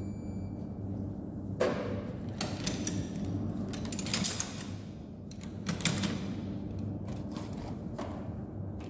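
A scattering of short metallic clicks and clinks from hand tools being handled and set down, over a steady low hum.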